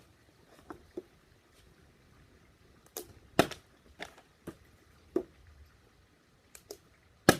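A plastic water bottle being flipped and landing on a hard surface: a string of about ten sharp knocks and thuds at uneven spacing, the loudest about three and a half seconds in and just before the end.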